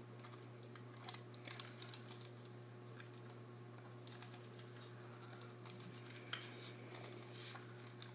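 Faint clicks and taps of a thin metal antenna rod being screwed into a plastic RC car transmitter, a few at a time, over a steady low hum.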